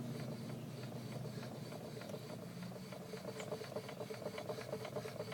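Jacked-up front wheel hub of a 2003 Chevrolet Cavalier turning: a run of light clicks, several a second, over a faint brake rub. The owner is unsure whether the clicking is a failing wheel bearing or something normal.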